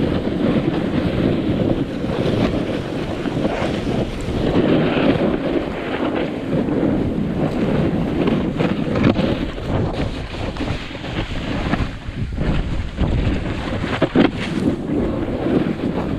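A snowboard hisses and scrapes as it slides and carves down steep, soft snow, mixed with steady wind rushing over the GoPro Hero7 Black action camera's microphone. Sharper scrapes come in irregularly, the strongest near the end.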